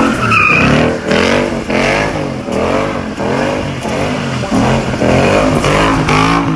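Ford Mustang 5.0 V8 with an X-pipe exhaust, loud, its revs rising and falling over and over, about three times every two seconds, with a brief high squeal about half a second in.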